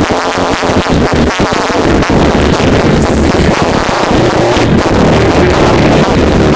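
Loud music with an electronic beat and pulsing bass, picked up through a laptop's built-in microphone.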